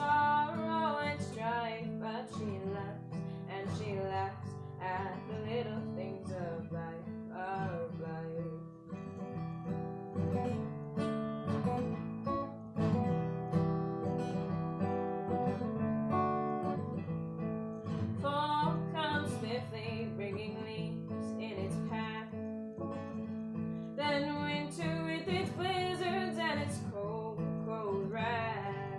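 Steel-string acoustic guitar strummed and picked steadily as a folk song accompaniment.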